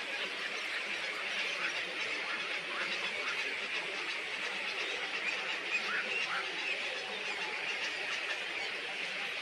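Many small birds chattering at once: a dense, steady stream of short high chirps with no pauses.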